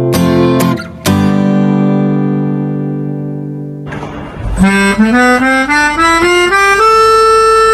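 A ringing chord fades slowly over the first few seconds. Then a melodica (pianika) plays a rising run of notes, climbing step by step, and settles on a long held note near the end.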